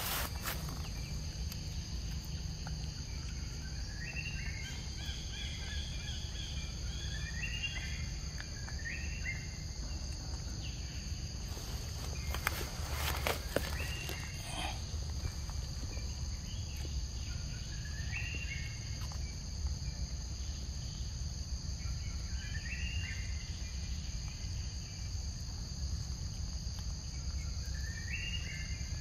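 Forest ambience: a steady high-pitched insect drone, with short rising calls repeating every few seconds and a few clicks and rustles about twelve to fourteen seconds in.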